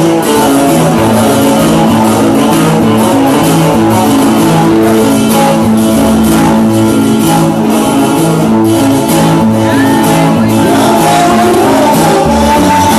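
Loud band music with guitar, playing steadily throughout.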